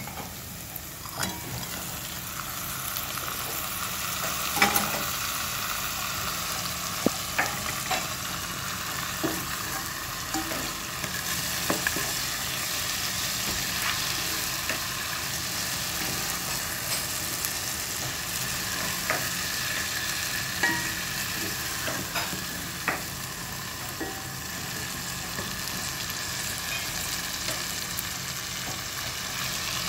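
Chopped onion and garlic frying in oil in a pot, a steady sizzle, with a utensil scraping and knocking against the pan every second or two as it is stirred.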